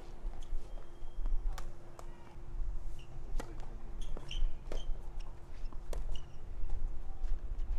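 Tennis ball being bounced and struck with a racket on a clay court: scattered sharp pops and thuds, with a serve hit about six seconds in. Underneath is a steady low rumble and a faint hum.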